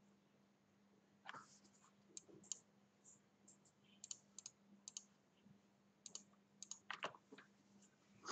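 Faint, scattered clicks of a computer mouse and keyboard, a few at a time with short gaps between them, over a faint low steady hum.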